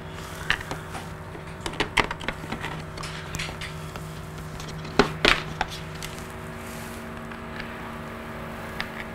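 Scattered light clicks and knocks of a screwdriver working Phillips screws and of plastic motorcycle cover parts being handled, with two louder knocks about five seconds in, over a steady low hum.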